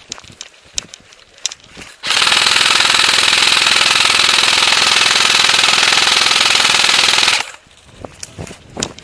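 Airsoft electric gun firing one long full-auto burst of about five seconds, starting abruptly about two seconds in and cutting off sharply. Scattered footsteps come before and after it.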